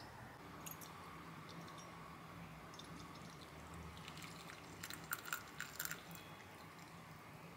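Warm water poured from a metal kettle into a ceramic mug, a faint steady trickle, with a quick run of small clicks and splashes about five seconds in.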